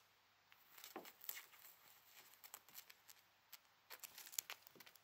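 Faint, irregular scratching and rustling as a kitten paws and claws at a dry grass stem on a mat, with small clicks in two flurries, about a second in and again near four seconds.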